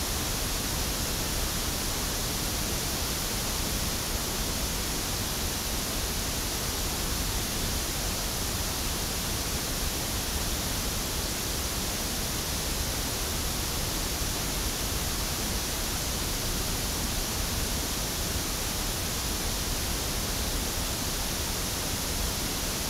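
Steady, unbroken pink-noise test signal from a loudspeaker, picked up by an Audix OM7 dynamic microphone.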